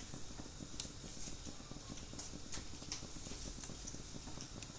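A metal ladle turning half-steamed rice in a perforated steel colander, with faint scrapes and light clicks of the ladle against the steel, over a low steady hum.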